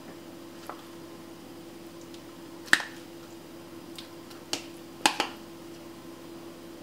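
Metal spoon clinking against a stainless-steel saucepan and a plastic tub while soft ricotta is scooped out and dropped in: a handful of sharp clinks, the loudest a little under three seconds in and two close together about five seconds in.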